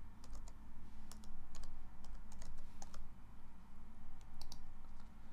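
Typing on a computer keyboard: about a dozen irregular key clicks as a password is entered, over a steady low hum.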